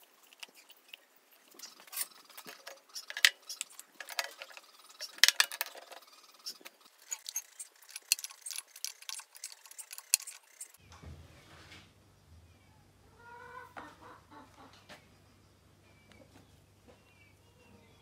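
Metal clinks and taps of a wrench and fittings as a pressure switch is screwed onto the air tank's threaded outlet, in a quick irregular run for the first ten seconds or so. It then drops to a quieter low steady hum with a few short bird calls.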